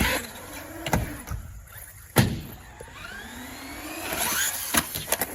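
Large radio-controlled truck's electric motor whining up in pitch as it accelerates, with two hard thumps of the truck hitting the ground about a second and two seconds in.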